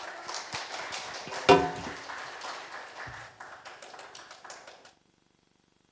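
A small audience clapping before a piano performance, thinning out and stopping about five seconds in. A brief loud pitched sound, the loudest moment, stands out about a second and a half in.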